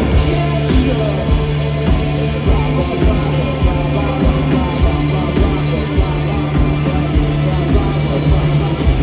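Rock band playing live, heard from the crowd: drums hitting about twice a second under sustained bass and guitar.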